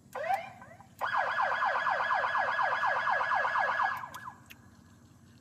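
Police patrol car siren: a short rising sweep, then from about a second in a fast yelp of falling sweeps, about five a second, cutting off after about three seconds.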